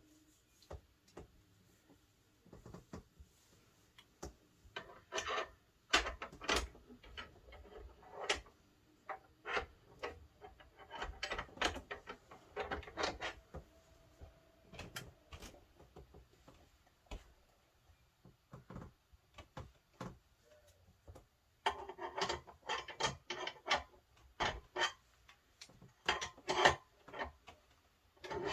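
Books and wood being handled at a wooden bookcase: an uneven run of knocks, slides and thumps, with bursts of rapid clattering.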